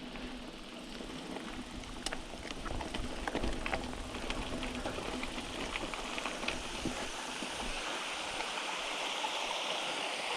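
Small waterfall splashing steadily, the water growing louder towards the end, with scattered light clicks over the first few seconds.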